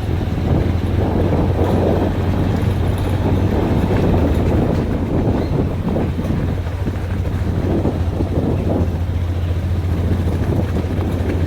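An engine running steadily with a constant low hum, and wind rumbling on the microphone.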